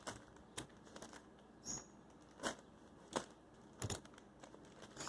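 Mail package being opened by hand: faint crinkling with a few short sharp crackles, roughly one a second.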